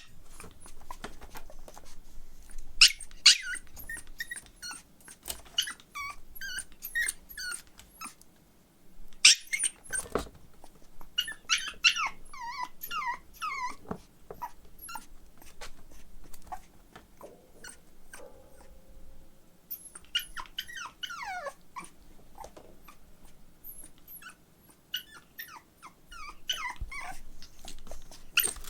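Pomeranian puppy whining and yipping: many short high-pitched calls, often sliding down in pitch, coming in clusters with brief quiet pauses between them.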